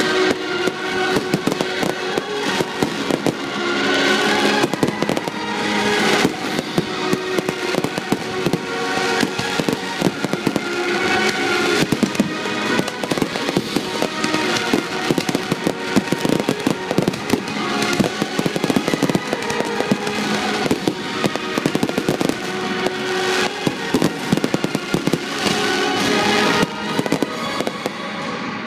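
Fireworks display: a rapid, continuous run of shell bursts and crackling, with music playing underneath.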